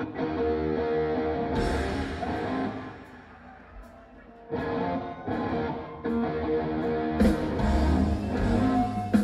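Live rock band heard from the audience: electric guitar chords that stop and start, then the full band coming in louder about seven seconds in.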